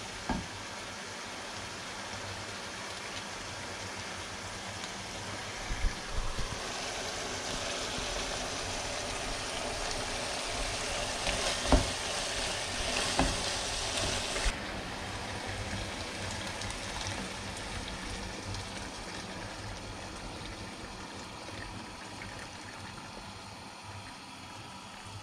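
Stew of meat and vegetables sizzling and bubbling in a large pot on a gas burner, with a few sharp knocks of a wooden spoon against the pot as it is stirred. The sizzle is louder through the middle and drops off suddenly. Near the end, hot water starts pouring into the pot from a kettle.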